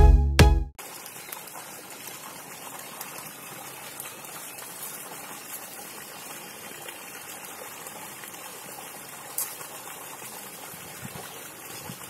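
A jingle cuts off within the first second, then a steady rush of water pouring from an irrigation pipe outlet onto the ground.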